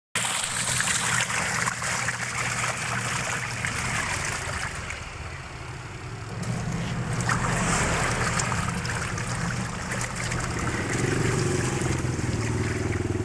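Washing machine running, with water rushing and splashing; a steady low motor hum comes in about six seconds in.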